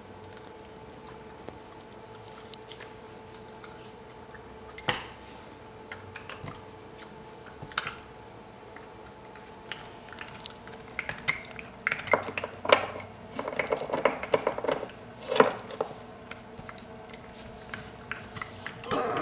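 Boston terrier gnawing a hard chew, its teeth clicking and scraping on it: scattered clicks at first, thickening into a busy run of clicks and knocks in the second half.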